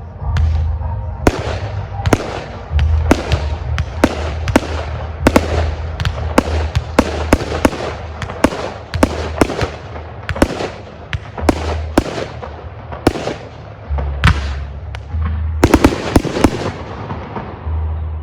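Aerial fireworks display: a rapid string of shell bursts and sharp cracking reports, two or three a second, thickening into a dense cluster of bangs near the end.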